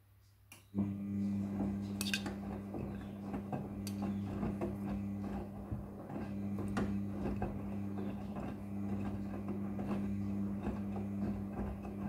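Front-loading washing machine starting its wash tumble: a click about half a second in, then the drum motor comes on with a steady hum under a second in. Wet jeans and water slosh in the turning steel drum with many small clinks and knocks.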